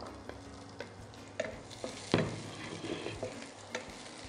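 Chopped garlic and sliced shallots sizzling in coconut oil in a frying pan, stirred with a wooden spatula that knocks and scrapes against the pan a few times, the loudest knock about two seconds in.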